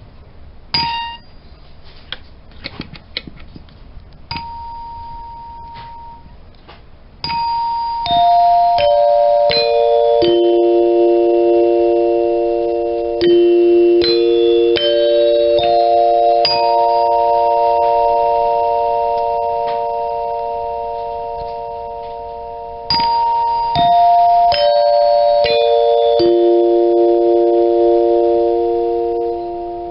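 Dinner chime's tuned tubes struck one after another in runs of about five notes, each note ringing on long and overlapping the next. A falling run is followed by a rising one and then another falling one. Before that come a few light clicks of handling and one short chime note.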